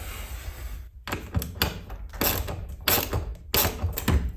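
A string of irregular sharp clicks and knocks from tools and hardware being handled, starting about a second in.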